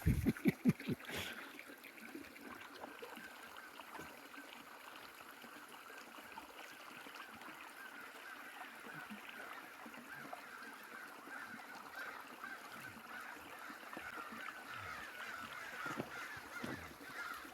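Crows cawing over and over as they mob a raptor, the calls growing denser toward the end. A few heavy thumps in the first second.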